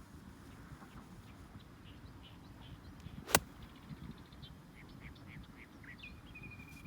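A golf club striking the ball once about halfway through, a single sharp crack, with small birds chirping in the background.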